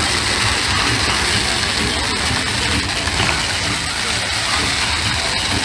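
Ground fireworks (fountains and gerbs) spraying sparks with a steady, loud rushing hiss, and crowd voices mixed in.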